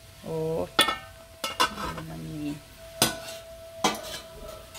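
Stirring in a metal cooking pot, with about five sharp clinks as a metal ladle or spoon knocks against the pot.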